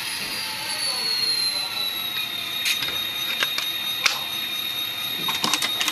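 Model locomotive sound decoder (Soundtraxx Tsunami, EMD 645 turbocharged diesel sound file) playing through its small speaker: the idling prime mover with a high turbocharger whine that slides down in pitch and then holds steady. Several sharp clicks come in the second half.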